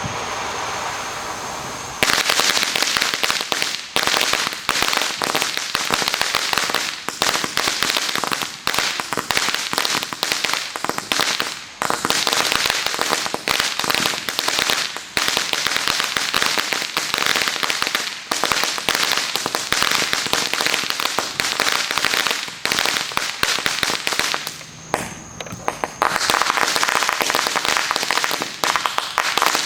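Firecrackers going off in a rapid, unbroken crackle of sharp bangs, after a steady hiss in the first two seconds. There is a short lull a few seconds before the end, then the bangs resume.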